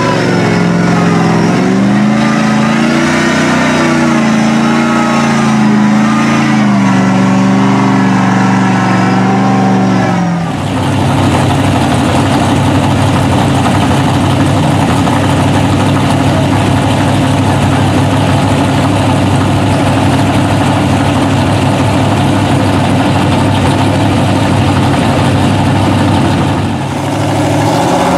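Lifted mud truck engine revving as the truck drives through water and mud, its pitch rising and falling. About ten seconds in this gives way to a steady, harsher engine drone that holds almost to the end.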